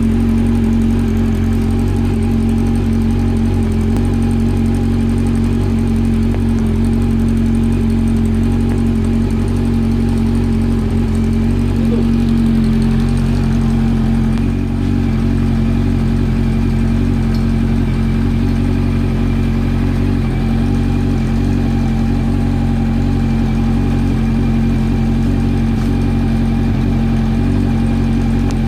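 Motorcycle engine running steadily at a constant idle-like speed, loud and unchanging in pitch.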